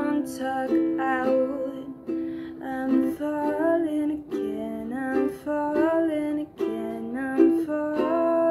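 Ukulele strummed in slow chords, with a woman singing softly over it.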